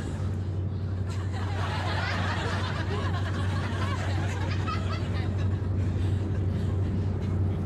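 Steady low drone of a river boat's engine, with audience laughter over it, strongest in the first few seconds.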